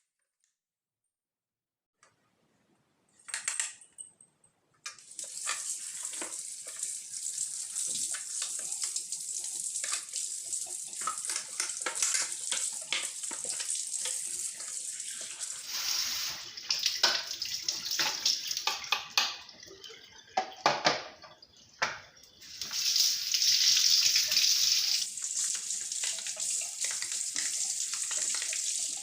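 Tap water running and splashing over the removed plastic detergent drawer of a front-load washing machine as it is rinsed and rubbed by hand, with small knocks of the plastic. Nearly silent at first, a short splash about three seconds in, then the flow runs steadily from about five seconds on, its splashing changing as the drawer is turned under it.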